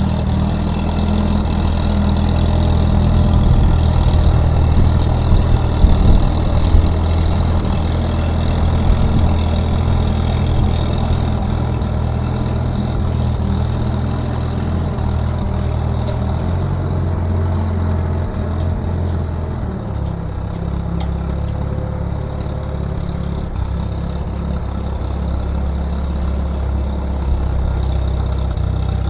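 An engine running steadily at a fast idle, settling to a slower, lower speed about twenty seconds in.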